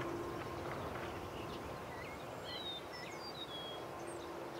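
Wild birds chirping and whistling in short calls, most of them in the middle of the stretch, over a steady open-air background hiss and a faint steady hum.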